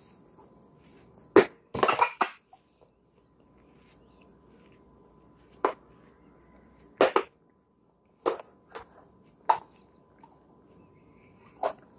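Empty plastic Play-Doh tubs clacking against each other and the plastic high-chair tray as they are stacked and handled. The sound is a series of short, irregularly spaced knocks, loudest a little over a second in, with a quick flurry just after.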